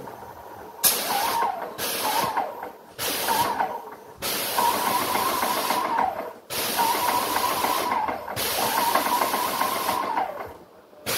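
Ultrabest Bheem airless paint sprayer's electric motor and pump running in bursts, set to return: three short bursts, then three longer runs of about two seconds each. Each burst rises to a steady whine, holds, and drops away, over a hiss.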